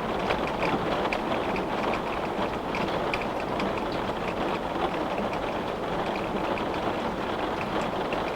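Steady rain falling on a glass windowpane, a dense patter of many small drop ticks over an even hiss.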